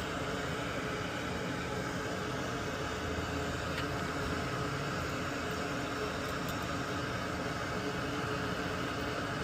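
Steady whooshing hiss of a fan or air blower running at an even level.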